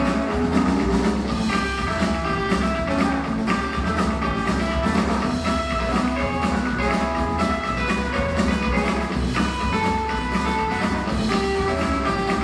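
Live rockabilly band playing an instrumental section, with an electric guitar lead over upright bass, drums and acoustic guitar.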